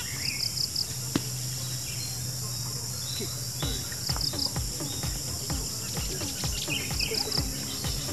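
Insects droning steadily, with a short chirping call of three or four quick notes repeating a few times. A few seconds in, a steady low beat of background music comes in.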